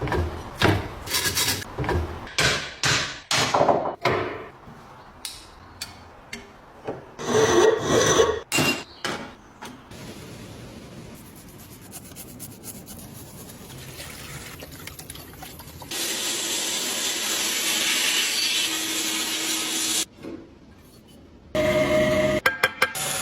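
Restoration work on an antique bread cutter: a run of short, irregular scraping and rubbing strokes, then a steady hiss for several seconds, ending in a few sharp clicks.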